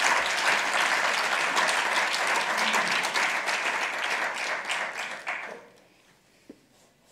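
Audience applauding, a dense patter of many hands that dies away about five and a half seconds in.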